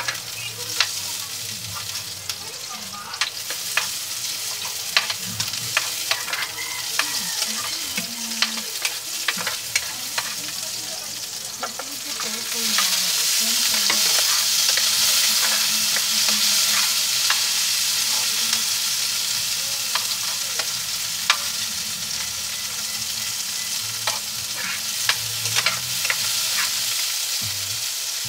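Chopped onion sizzling in a frying pan, with a spatula scraping and clicking against the pan as it is stirred. About twelve seconds in the sizzle grows louder as more diced vegetables go into the pan.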